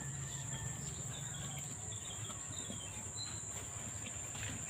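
Insects trilling in dense garden vegetation: one steady, unbroken high-pitched drone, with a few faint short chirps about halfway through.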